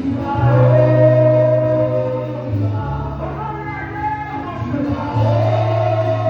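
Live gospel praise music: a group of voices singing long held notes over sustained low bass notes that change about every two to three seconds.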